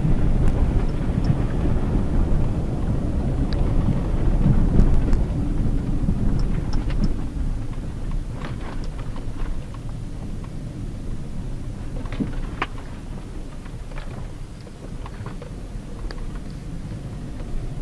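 Cabin noise of a first-generation Hyundai Tucson with a 2.0 petrol engine driven on a rough dirt road: a steady low rumble of tyres, suspension and engine. Scattered small clicks and knocks come in the second half as the rumble eases somewhat.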